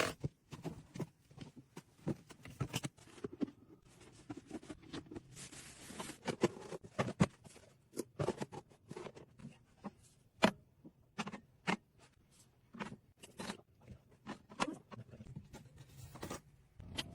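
Hands handling a camping cooking-utensil set: irregular clicks and knocks of pieces being picked up and set down, mixed with rustling and scraping, including a longer scratchy rasp about five seconds in.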